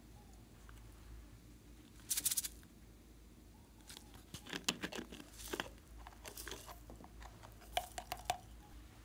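Small plastic glitter bottle being handled, opened and shaken: short clusters of clicking and rattling, one about two seconds in and several more in the second half, as glitter is shaken out onto slime.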